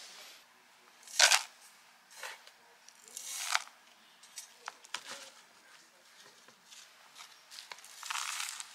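A plastic plant pot and potting soil being handled in a plastic tray during repotting: a few short scraping and rustling noises, the loudest about a second in, more near the middle and near the end.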